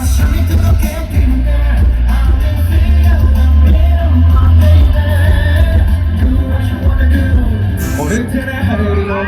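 Live K-pop concert performance heard from the audience: a boy band singing over a loud pop backing track with a heavy bass beat.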